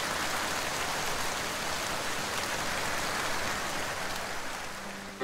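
Steady rain falling on wet pavement: a dense, even hiss of drops splashing into puddles, easing slightly near the end.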